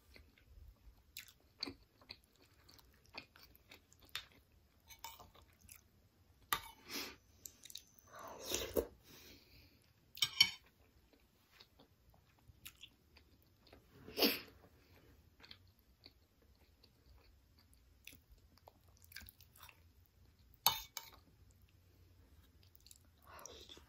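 Close-miked mouth sounds of a person eating soft sticky rice in durian kolak: scattered small wet smacks and chewing clicks. A few louder sharp clicks, the metal spoon against the ceramic bowl, stand out about ten, fourteen and twenty-one seconds in.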